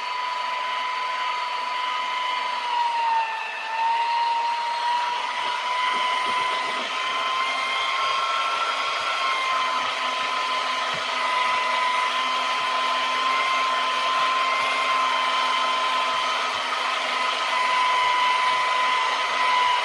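Corded electric drill with a paddle mixer stirring epoxy resin in a plastic bucket: a steady motor whine that dips briefly in pitch about three and a half seconds in.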